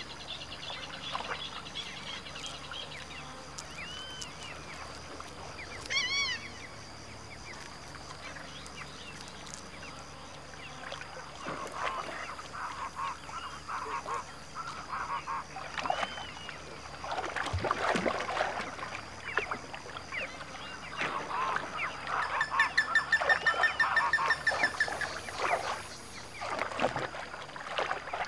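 Giant river otters calling while feeding: short calls that rise and fall in pitch, coming more often and louder in the second half, with a fast pulsing run of loud calls about 22 seconds in that lasts several seconds. A faint steady high tone sits underneath.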